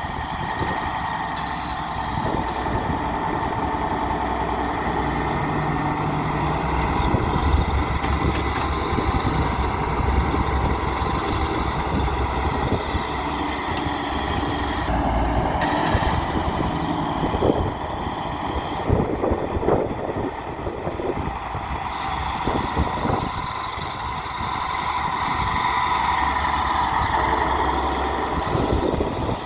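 Diesel engine of a Daewoo 170W-3 wheeled excavator running as the machine works, its low drone rising and falling with the load. A brief hiss about halfway through, followed by a few knocks.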